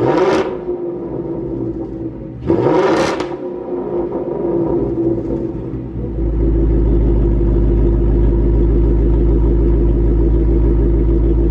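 2024 Mustang GT's 5.0 L Coyote V8 running through a Corsa Extreme Dark Horse cat-back exhaust on its first cold start after sitting overnight. Two short revs come, one right at the start and one about three seconds in. From about six seconds it settles into a steady idle with a deep, even drone.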